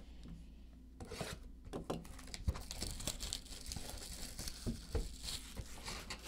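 Cardboard trading-card boxes and a stack of cards handled by hand while a fresh box is opened: a dense run of light rustles and small clicks, starting about a second in.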